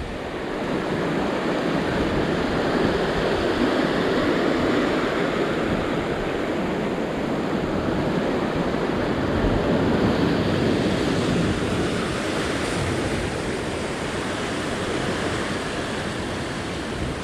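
Sea surf breaking and washing over a rock ledge at the water's edge: a steady rushing wash, a little stronger through the first half and easing slightly near the end.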